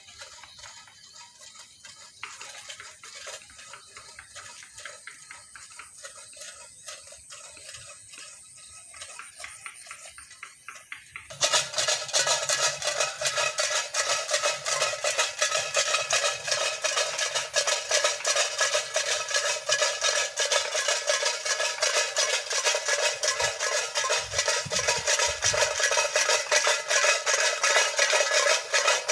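Rope-strung tin cans filled with small stones, rattling and clanking together in a dense, continuous metallic clatter as a bird-scaring device. The clatter starts suddenly and loud about eleven seconds in, after a quieter stretch.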